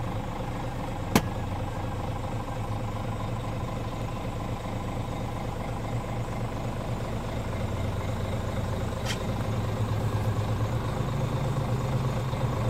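Scania R410's inline-six diesel idling steadily, heard from inside the cab, its hum stepping slightly higher and louder in the last couple of seconds. A sharp click sounds about a second in and a fainter one near nine seconds.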